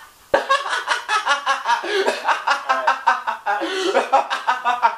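A man laughing loudly in a long, quick run of ha-ha pulses, about five a second, breaking in suddenly a third of a second in.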